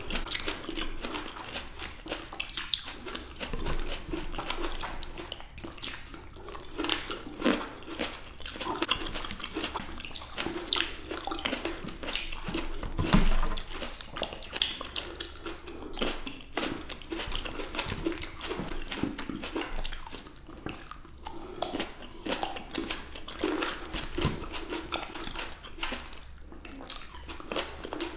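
Fresh black grapes being bitten and chewed close to the microphone: wet squishing with a dense run of irregular juicy clicks and crackles, the sharpest bite about thirteen seconds in.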